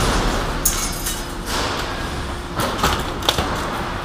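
Metal casing and frame parts of a cut-open LCD screen scraping and clattering as they are pulled apart by hand, with several sharp knocks, one with a brief metallic ring. A faint steady hum runs underneath.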